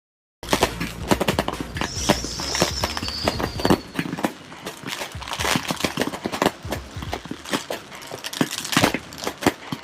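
Fireworks going off: a fast, irregular run of sharp cracks and pops, with a short whistle falling in pitch about two seconds in.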